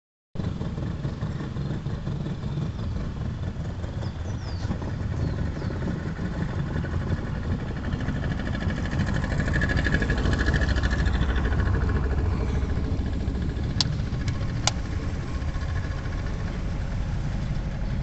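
Outboard motor of a narrow aluminium longboat running steadily under way, growing louder for a few seconds midway. Three sharp clicks near the end.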